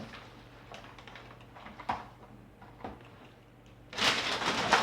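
Faint knocks of parts being handled, then about four seconds in a rustle of packaging lasting about a second, much louder than the knocks.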